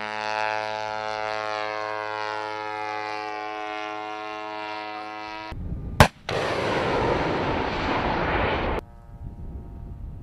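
A small propeller target drone's engine drones steadily overhead, its pitch sinking slightly, then stops abruptly. About six seconds in, a FIM-92 Stinger is fired: one sharp, very loud bang as the launch motor ejects the missile, then the flight motor's rushing noise for about two and a half seconds before it cuts off.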